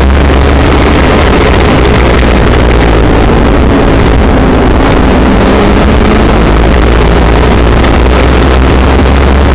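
Legends race car's four-cylinder Yamaha motorcycle engine running hard at racing speed, heard from inside the cockpit. It is loud and steady, with wind noise over the car.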